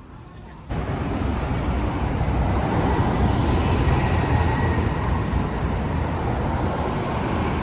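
Steady vehicle noise, a low rumble with a hiss above it, that starts abruptly about a second in.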